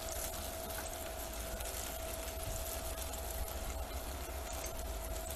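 Squash-and-carrot fritters frying in hot oil in a small enamel pot, a steady sizzle with fine crackles. A steady low hum and a faint steady tone run underneath.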